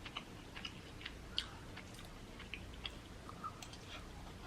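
A person chewing food close to the microphone: soft, irregular wet mouth clicks, several a second.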